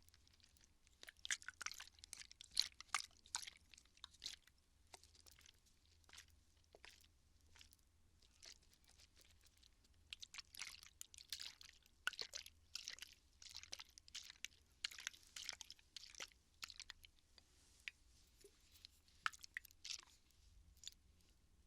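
A water bottle handled close to the microphone, giving crackly crunching and crinkling sounds in clusters, with short pauses between them.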